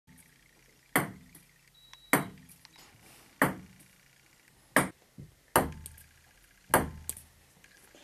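Table tennis rally: a ping-pong ball struck back and forth, six sharp clicks a little over a second apart, with a short ring after each.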